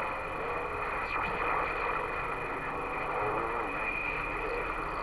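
CB radio receiver hissing with band noise, faint unintelligible distant stations breaking through weakly underneath.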